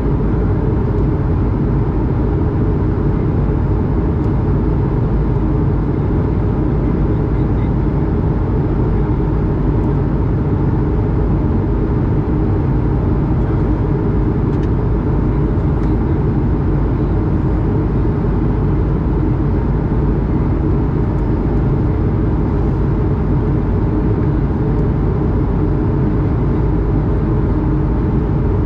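Steady cabin noise of an Airbus A220 at altitude, heard from a window seat beside the wing: a constant low rumble of its Pratt & Whitney PW1500G geared turbofan and the rushing air, with faint steady hums above it.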